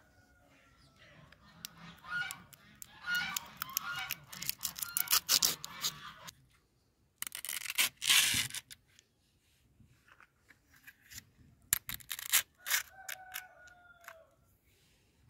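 Small dried fish being pushed onto a stick through their heads: irregular crackling and crunching clicks, with one louder, longer crunch about eight seconds in. A faint bird call sounds twice in the background, near the start and near the end.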